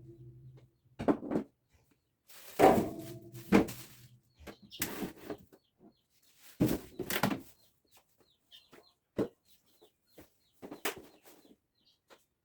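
Irregular knocks, clicks and clunks of refrigerator shelves, drawers and door being handled and set down during cleaning. Faint short chirping calls sound in the background a few seconds in.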